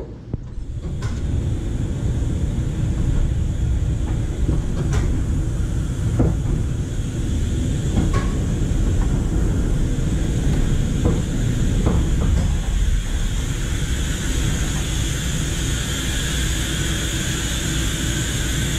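A streetcar rolling slowly along the carbarn track, with a steady low rumble and scattered clicks and knocks.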